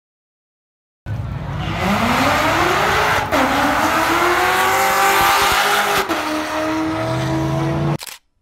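Chevrolet Corvette C7's V8 accelerating hard down a drag strip, its pitch climbing, then dropping with an upshift about two seconds after it starts, climbing again and dropping with a second upshift about five seconds in. The sound starts suddenly about a second in and cuts off abruptly near the end.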